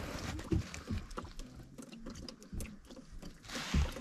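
Scattered light clicks and knocks over faint, indistinct voices, with a louder burst of noise near the end.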